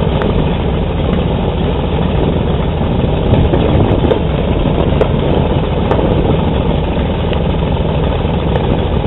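Aircraft engines running steadily, a loud, even drone.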